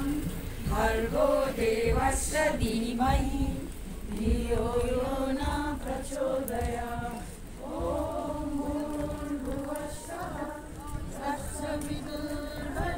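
A group of voices singing a slow, chant-like song together, with long held notes.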